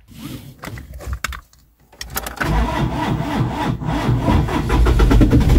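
Hyundai H100 motorhome's engine starting: a few short clicks and knocks, then about two seconds in the engine catches and runs steadily, getting louder near the end.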